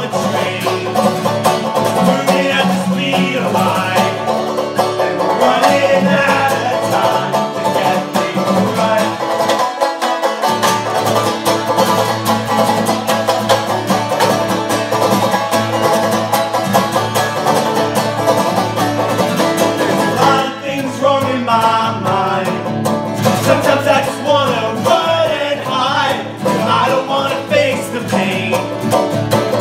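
Live acoustic folk song: strummed acoustic guitar and a second plucked string instrument played together, with a sung vocal in the first part that drops out through the middle and comes back about two-thirds of the way through.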